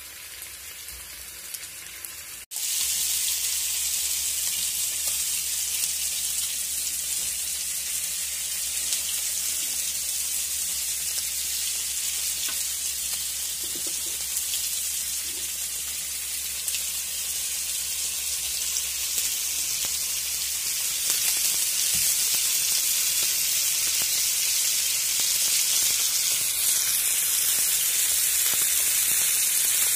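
Masala-coated whole fish shallow-frying in oil on a flat iron pan (tawa): a steady sizzle. It cuts out for an instant about two and a half seconds in and comes back louder.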